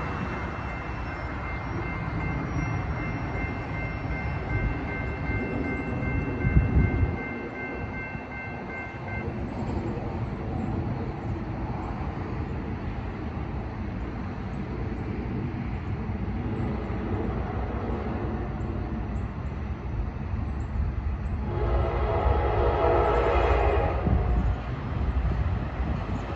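Railroad crossing warning bell ringing steadily as the crossing activates, stopping after about nine seconds, over a low rumble with a brief loud low surge about six seconds in. About 22 s in, the approaching passenger train's locomotive horn sounds a long chord for a couple of seconds, and a second blast starts right at the end, the horn signal for the crossing.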